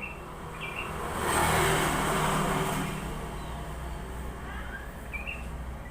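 A motor vehicle passing by, its engine noise swelling and fading over about two seconds. A few short chirps from a sooty-headed bulbul come near the start and near the end.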